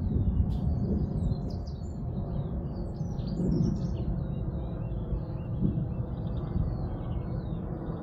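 Small garden birds chirping and singing in quick, overlapping short calls, busiest in the second half, over a steady low rumble.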